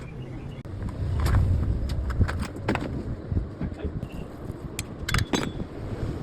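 Metal clinks and knocks of hand tools working on a motorcycle's rear chain sprocket and axle during a chain set change, over a low rumble that is strongest in the first half.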